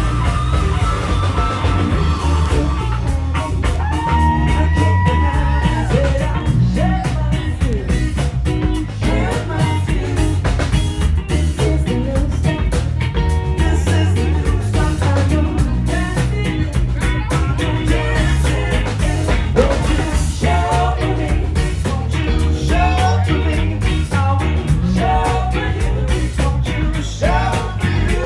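Live band playing a rock song with a ska feel: electric guitar, heavy bass and drums keeping a steady beat, with a singer's voice over them.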